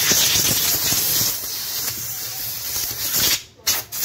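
Steady hiss with a few light metallic clicks as a drum-brake shoe plate and its cable are handled. The hiss breaks off briefly about three and a half seconds in.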